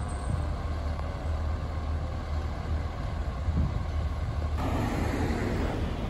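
Fire engine running as it approaches slowly with its siren off: a steady low rumble, joined by a sudden louder rush of noise about four and a half seconds in.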